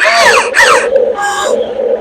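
Electric motors of an RC model excavator whining, with several short whines that slide down in pitch and a brief steady whine about a second in, over a steady pulsing hum.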